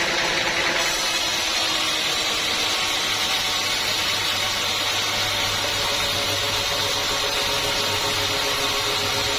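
Sawmill machinery running steadily with an even, loud mechanical hum. A higher-pitched part of the sound drops out about a second in.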